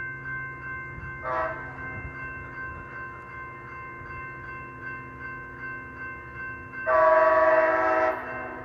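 Train horn sounding on departure from a station: a brief toot, then a loud, sharp blast lasting over a second near the end.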